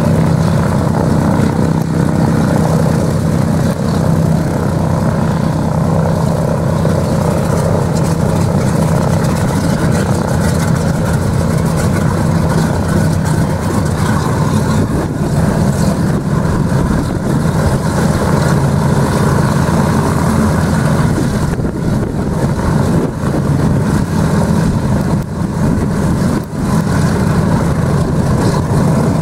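B-24 Liberator's Pratt & Whitney R-1830 Twin Wasp radial engines running steadily at idle with the bomber standing still, a loud, even drone.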